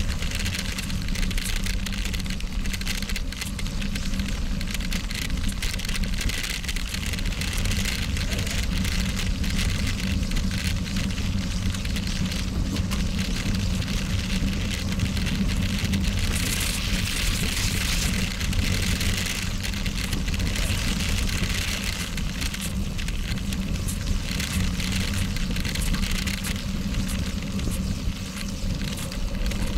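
Bicycle tyres rolling fast over loose sandy gravel, a steady gritty crunching hiss mixed with wind noise on the bike-mounted camera. It grows harsher for a few seconds past the middle.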